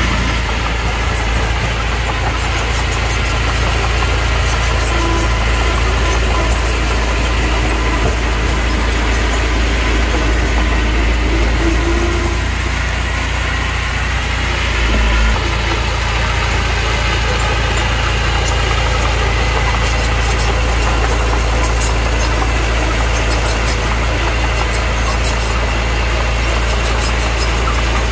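Diesel engine of heavy earthmoving machinery running steadily with a low rumble, its note shifting briefly about halfway through.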